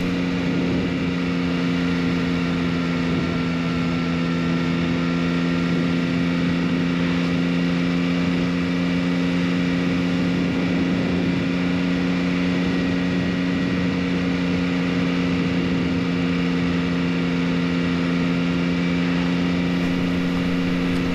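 Yamaha XSR900's three-cylinder engine running at steady revs while riding, with wind and road noise; the pitch holds level throughout.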